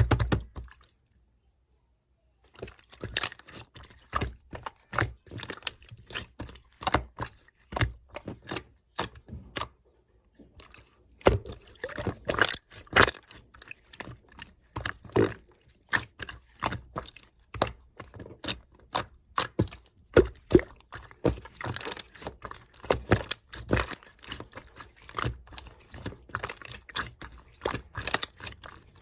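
Yellow clear slime being squeezed and pressed by hand, giving rapid, irregular sharp clicks and wet pops, with two brief pauses.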